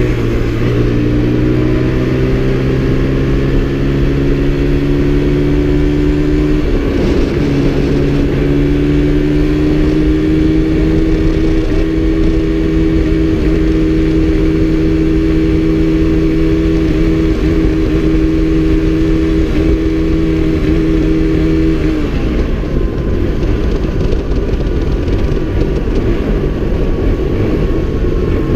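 1984 Suzuki DR100's small single-cylinder four-stroke engine running at steady riding throttle under way, its note rising slightly, then a short break about a quarter of the way in as it changes gear. Well past halfway the throttle closes and the engine note drops away, leaving the steady rush of wind on the microphone.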